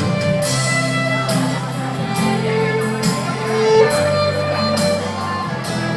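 Background music with a melodic line over bass and a steady beat.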